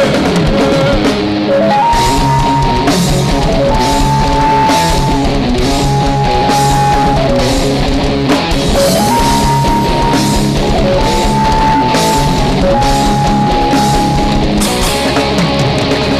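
Live rock band playing an instrumental passage with no singing: a steady drum beat with cymbals and guitar under a lead melody of long held notes. The melody is a falling three-note phrase, played twice.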